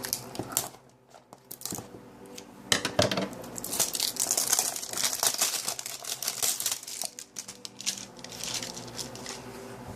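Cardboard and plastic packaging of a blind-box figure being cut open with scissors and handled: scattered snips and clicks, then dense crinkling from about three seconds in.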